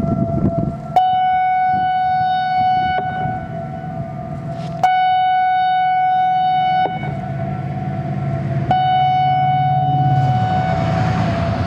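Electronic outdoor warning siren sounding three loud steady-tone blasts of about two seconds each, about two seconds apart, with a fainter lower tone in the gaps. A low rumble builds in the last few seconds.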